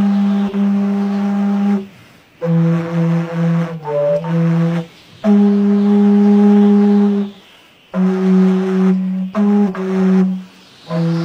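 Background music: a low, reedy wind instrument playing slow phrases of long held notes, with short breaks between them.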